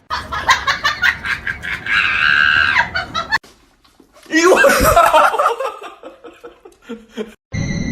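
Human voices laughing and shrieking across short back-to-back clips, broken by a brief silence about three and a half seconds in.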